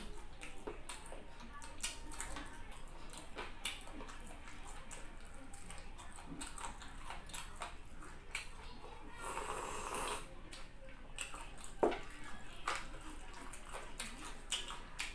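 Close-up eating sounds from a man chewing fried chicken and rice with his mouth open: wet chewing and lip-smacking with many small clicks, plus a louder breathy sound lasting about a second around nine seconds in.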